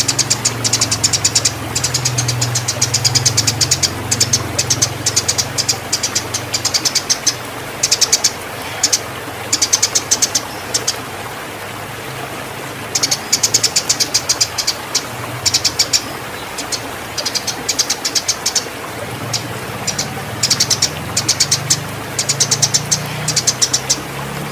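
Eurasian tree sparrows chirping in rapid, high bursts of many notes, the agitated calls of sparrows fighting and in breeding excitement. A steady low hum runs underneath, and the chirping pauses briefly about halfway through.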